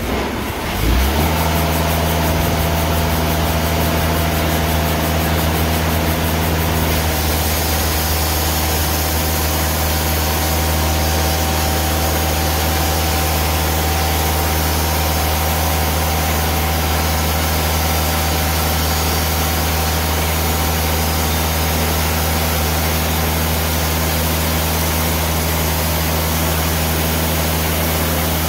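Timberking bandsaw mill's engine running steadily under load while its band blade saws through a log.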